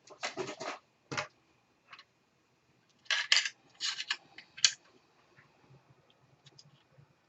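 Short clicks, scrapes and rattles of screws and a screwdriver while a laptop's hard drive and case are screwed back together. They come in a cluster in the first half, the loudest a few seconds in, then fade to faint ticks.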